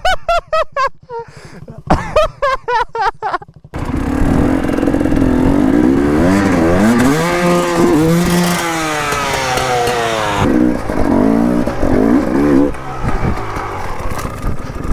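Two-stroke KTM 300 EXC enduro bike engine revving, its pitch climbing and falling. The first few seconds are short separate bursts of revs; a longer run of revs follows and settles lower about ten seconds in.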